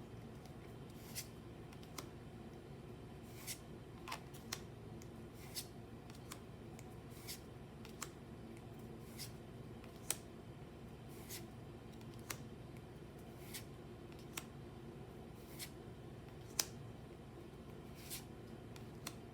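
Pokémon trading cards being handled one at a time, with a light, sharp click about once a second and two louder snaps. A faint steady hum runs underneath.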